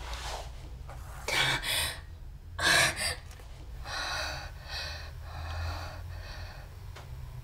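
A person breathing hard: two sharp gasps in the first three seconds, the second the loudest, then four quieter, shorter panting breaths, over a low steady hum.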